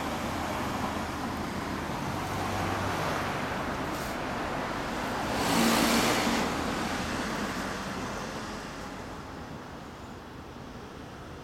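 Street traffic noise, with a vehicle passing by that is loudest about six seconds in and then fades away.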